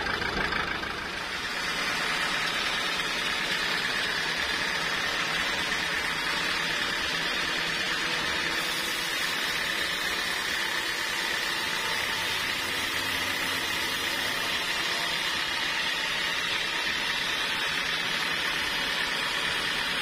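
Homemade band sawmill running steadily, its blade cutting lengthwise through a large trembesi (rain tree) log.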